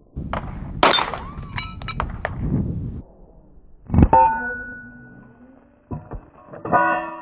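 Pistol shots striking targets: a noisy stretch of clinks and rattles from debris, then about four seconds in a single sharp hit that rings on with a metallic tone. Plucked guitar music comes in near the end.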